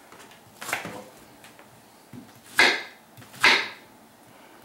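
Kitchen knife chopping vegetables on a wooden cutting board: a few separate cuts, the two loudest about a second apart in the second half.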